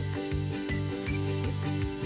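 Background instrumental music with a steady rhythm of repeated notes.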